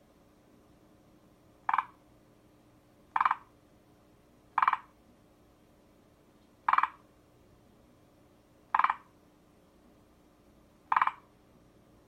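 Forest green tree frog (Moriao frog) calling: six short, separate calls, spaced about one and a half to two seconds apart.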